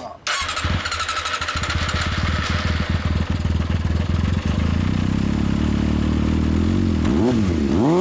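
Yamaha XJR400R's air-cooled inline-four firing up through a WR'S carbon aftermarket silencer about a third of a second in, then idling steadily. Near the end the throttle is blipped twice, the exhaust note rising and falling each time.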